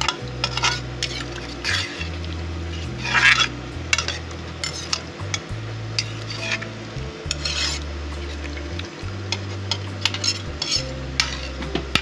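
A metal ladle stirring and scraping through a pot of watery chicken liver and potato curry, in irregular scraping strokes every second or so, the loudest about three seconds in.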